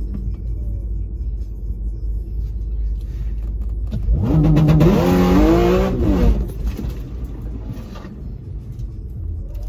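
Steady low engine rumble heard from inside a car's cabin. From about four seconds in, for some two seconds, a car engine revs hard and loud, its pitch climbing in steps and then dropping away.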